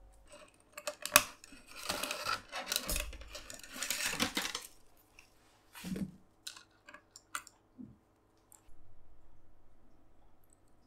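Hand work on an electric bass: sharp clicks, clatter of small hard parts and rustling, with a low fading hum near the end.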